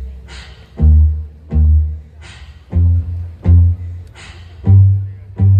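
Backing track of a gugak–K-pop fusion song intro: deep bass notes struck in pairs on a steady beat, with a sharp snare-like hit between each pair.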